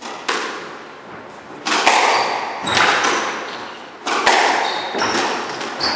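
Squash rally: a quick series of sharp cracks as the racket strikes the ball and the ball hits the walls, each ringing on in the hall, with short squeaks of court shoes on the wooden floor between hits.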